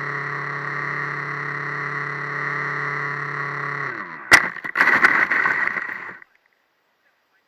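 Radio-controlled model plane's motor and propeller running with a steady hum, then winding down in pitch about four seconds in as it lands. A sharp thump at touchdown follows, then about two seconds of scraping as the plane skids over sand, and the sound cuts off suddenly.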